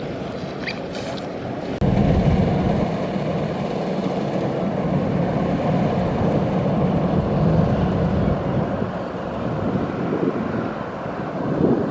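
Kubota DC-93 combine harvester with its four-cylinder turbocharged diesel running, a steady drone that jumps abruptly louder about two seconds in.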